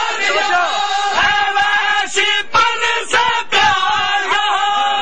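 Men's voices chanting a noha, a Shia mourning lament, with the crowd of mourners joining in on long wavering notes. A few sharp slaps of hand-beating (matam) stand out in the middle.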